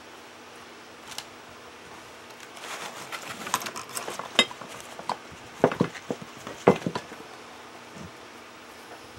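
Hard craft items handled and set down on a tabletop: a run of rustling and light clicks from about two and a half seconds in, with several sharp knocks, the loudest near six and seven seconds in, then quiet room tone.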